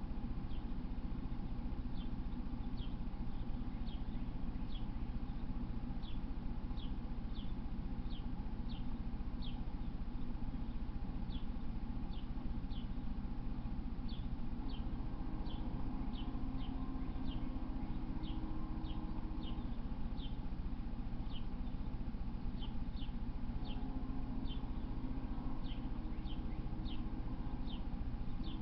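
A bird chirping over and over, short high down-slurred chirps about once or twice a second, over a steady low hum.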